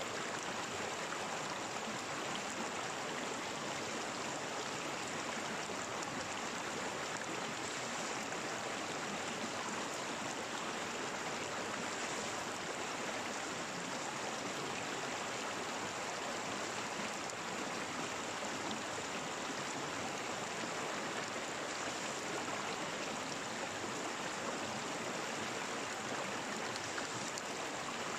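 Stream water flowing steadily, an even rushing with no breaks or changes.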